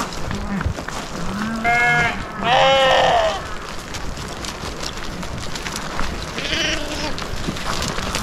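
A mixed flock of sheep and goats bleating: two loud bleats close together about two seconds in, and a fainter one near the end.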